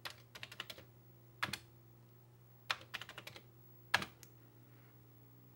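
Keys typed on a Commodore VIC-20 keyboard, heard as a few short bursts of clicks, over a steady low hum.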